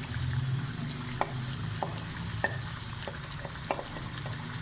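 Chicken frying in a karahi with a light sizzle while spiced yogurt paste is added, a spoon clicking against the pan four times and more faintly in between, over a steady low hum.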